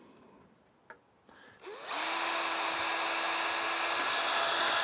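Cordless drill spinning up with a short rising whine about a second and a half in, then running steadily at full speed as a small 1/8-inch bit drills a pilot hole through a thin metal box. A faint click comes before it.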